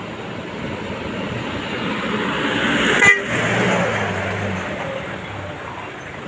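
A motor vehicle passing close by on the road, its noise swelling and then fading, with a short horn toot about three seconds in.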